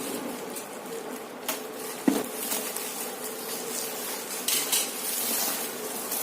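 Packaging around a stainless steel water jug being handled and pulled away: continuous rustling and crinkling with scattered small clicks, and one sharp knock about two seconds in.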